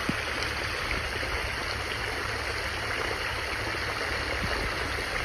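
Steady rush of running water from the fountains and sprays of a water play area.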